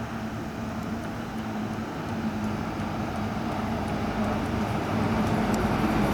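A diesel bus engine running with a steady low hum, growing louder as the bus draws nearer.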